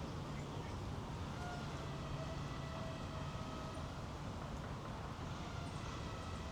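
Steady low hum of distant city traffic, with a few faint thin steady tones above it.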